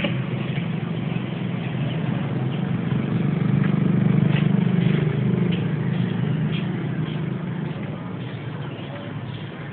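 A low, steady droning hum that swells about three to four seconds in and slowly fades toward the end.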